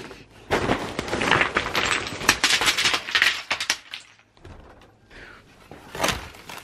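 Small rocks from a plant container clattering and rattling against one another and the container for about three and a half seconds, then a single short knock about six seconds in.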